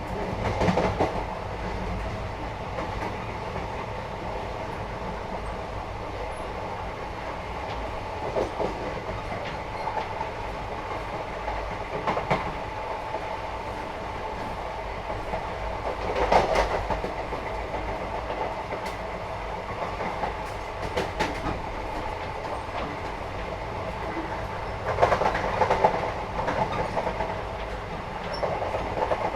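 Inside a moving Indian passenger train: a steady low rumble of the carriage on the rails, with wheel clatter and rattling that swell now and then, loudest about 16 seconds in and again near the end.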